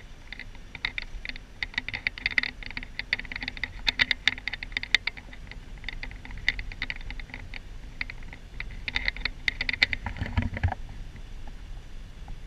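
Rapid, irregular clicking and light rattling inside a moving van, with a low thump about ten and a half seconds in, after which the clicking stops.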